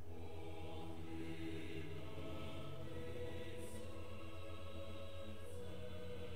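Choir or congregation singing a slow hymn during communion, in long sustained notes, over a steady low electrical hum.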